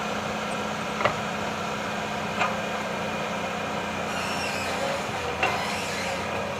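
Excavator's diesel engine running steadily, with three short sharp knocks spread through it.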